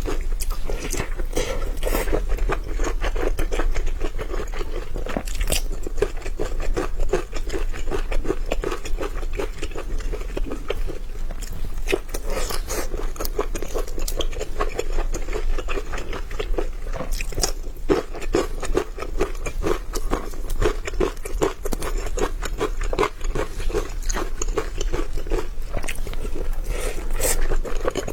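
Close-miked chewing of steamed dumplings: a steady run of wet mouth clicks and smacks as the soft dough and filling are bitten and chewed.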